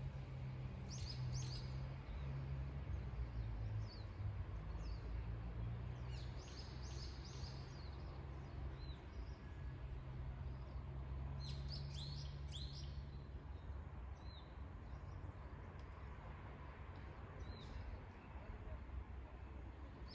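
Wild songbirds singing short, repeated high phrases about every five seconds, over a steady low rumble.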